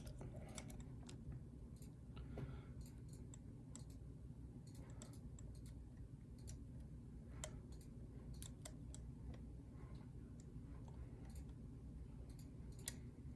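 Faint, irregular small clicks from a lock pick and tension wrench working the pin stacks of a mortise lock cylinder.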